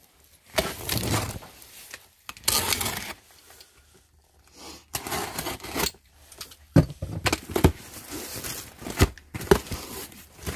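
Utility knife slicing through the packing tape and plastic wrap on a cardboard box in three tearing strokes, then the cardboard flaps being pulled open with a few sharp knocks and rustles.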